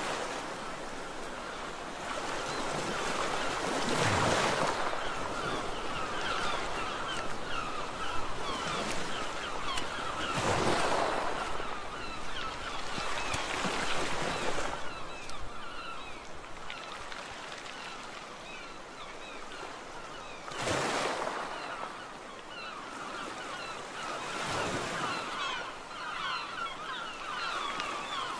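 Sea waves breaking on a beach, five surges a few seconds apart, each swelling up and washing back, over a constant hiss of surf.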